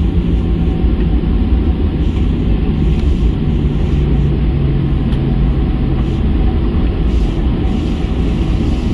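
Cabin noise inside a Boeing 737-800 taxiing after landing: a steady low rumble with a faint low tone that drifts slightly lower.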